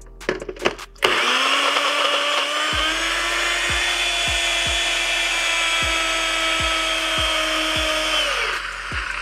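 Electric blender motor switching on about a second in and running at a steady pitch as it churns a thick cream-cheese mixture. It rises slightly as it spins up, then winds down with a falling pitch near the end.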